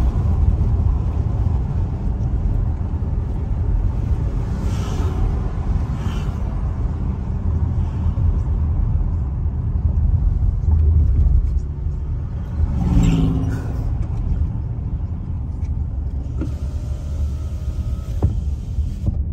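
Road and engine noise heard inside a moving car: a steady low rumble that becomes a little quieter about twelve seconds in.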